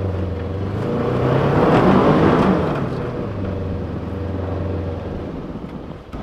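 Polaris XP UTV engine running as the machine drives through snow, with a steady low hum. It swells louder about two seconds in, then settles back.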